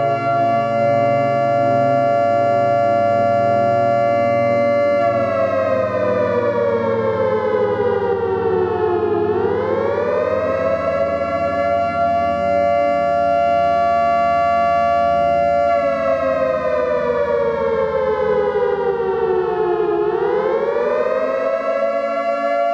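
Air raid siren wailing. Its pitch holds high for about five seconds, slides slowly down over about four, then climbs quickly back up, and the cycle repeats twice.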